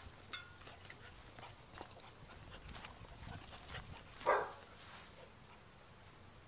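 A basset hound puppy gives one short bark about four seconds in, against light rustling and clicks of footsteps and handling on grass.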